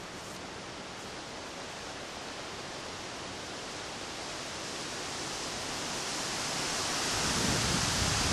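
Steady hiss of wind that grows louder, with wind rumbling on the microphone near the end.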